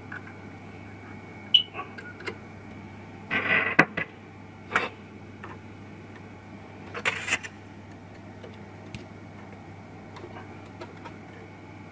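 Test-lead banana plugs being pushed into the binding posts of a bench electronic load: several sharp clicks and two short rustles of handling, over a steady low hum.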